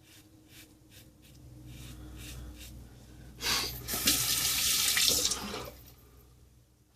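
A few faint short scratching strokes of a double-edge safety razor across lathered stubble, then a tap runs into a sink for about two seconds, starting about three and a half seconds in.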